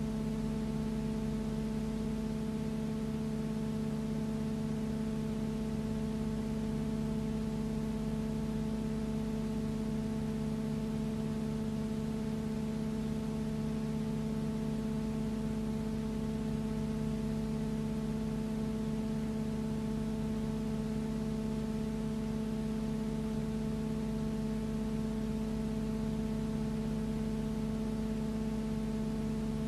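A steady, unchanging hum of several fixed tones over a constant hiss, holding the same level throughout with no rise or fall.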